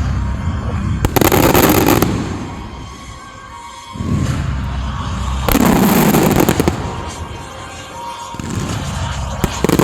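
Fireworks display going off in three waves of rapid bangs and crackling: the first about a second in, a longer one from about four to seven seconds, and another building near the end.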